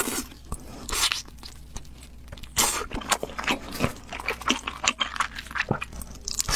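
Close-miked chewing and biting of sticky, chilli-glazed meat: many short, uneven clicks and crackles of mouth and food, louder about a second in and again from about two and a half seconds on.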